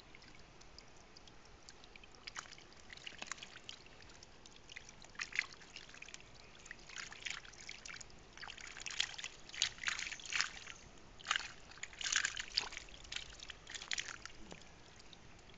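Live fish thrashing and splashing in a shallow plastic tub of water as a hand reaches in among them: irregular sharp splashes, few at first and coming thicker and louder from about five seconds in.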